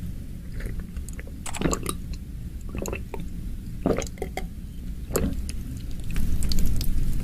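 Close-miked gulps and swallows of water drunk from a glass bottle, heard as four or five short separate sounds, with louder mouth and handling noise near the end.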